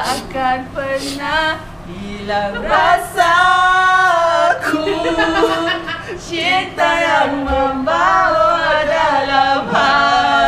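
A group of women singing a song together without instruments, with one long held note about three seconds in.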